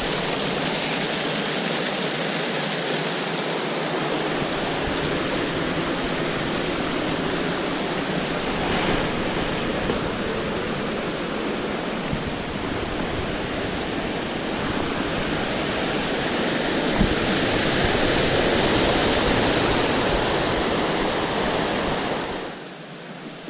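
Steady, loud rush of a mountain river's water, cascading over rocks. It drops away sharply near the end.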